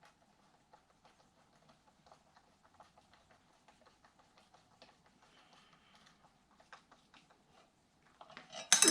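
Faint, irregular small clicks of a hand tool working the small bolts on an RC truck's steering knuckle, then a sudden louder clatter of tools or metal parts near the end.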